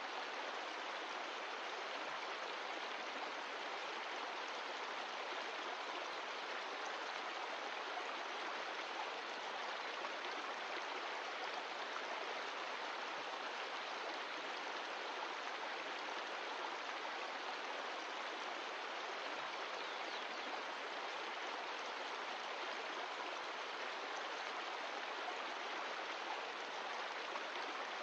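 Mountain stream of glacial meltwater rushing steadily over rocks, an even wash of water noise with no change.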